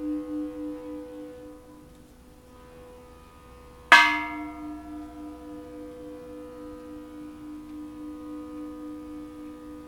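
Cracked bronze Japanese Buddhist temple bell ringing: the hum of the previous strike fades with a slow pulsing, then about four seconds in it is struck again, a bright clang that settles into a long ringing hum that keeps pulsing. It still rings on well despite the crack.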